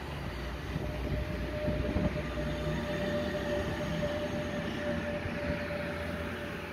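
A DB Intercity 2 double-deck train pulling out past the platform, its class 146.5 electric locomotive going by close: a steady rumble of wheels on the rails with a steady whine over it.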